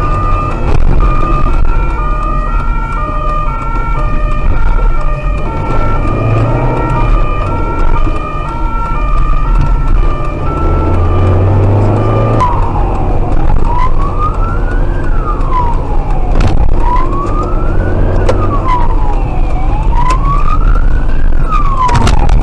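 Police car siren sounding ahead of the car. It alternates between two tones, then switches about halfway to a slow wail that rises and falls every two to three seconds. Engine and road noise run underneath.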